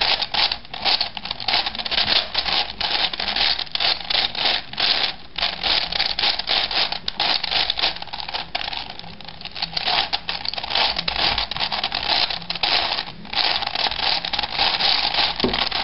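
V-Cube 7 puzzle cube's plastic layers turned rapidly by hand: a fast, continuous clatter of clicks and scraping turns, easing briefly about nine seconds in.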